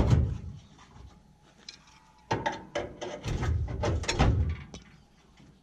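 Metal knocking and scraping as a heavy loose piece of metal is worked around inside a truck's cut-open cab corner: a short burst of knocks at the start, then a longer run of clanks and rubbing from about two seconds in.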